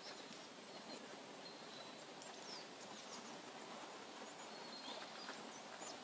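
Quiet forest ambience: scattered faint birds chirping, with short high steady notes and a few quick falling whistles, over a steady soft hiss.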